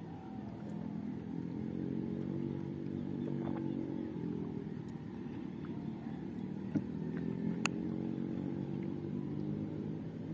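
A motorboat engine running steadily, its pitch drifting up and down and dipping briefly mid-way. Two sharp clicks about two-thirds of the way through.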